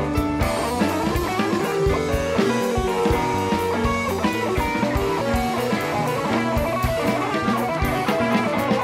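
Background rock music with electric guitar and drum kit keeping a steady beat.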